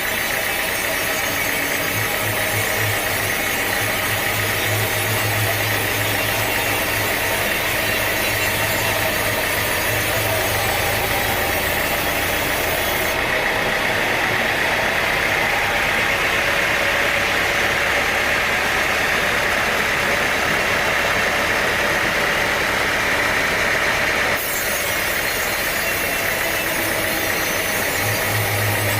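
Sawmill machinery running steadily, a continuous engine-like drone with some rattle.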